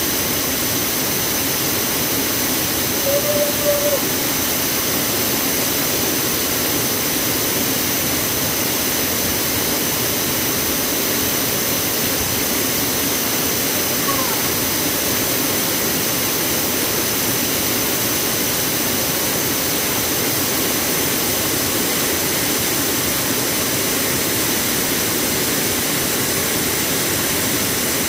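A wide waterfall pours over a low ledge into a plunge pool, making a loud, steady rushing roar of falling water close to the microphone. A brief short tone sounds about three seconds in.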